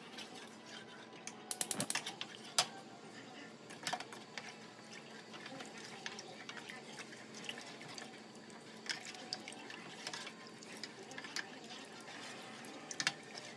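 Wooden spoon stirring sweet rice flour and water in a small aluminium pot as it thickens into porridge: a steady swish of liquid with scattered light knocks of the spoon against the pot, a quick run of them about two seconds in.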